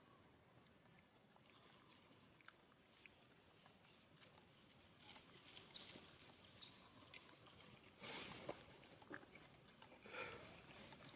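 Faint rustles and light clicks of small movements, with a louder brief rustle about eight seconds in and a smaller one about ten seconds in.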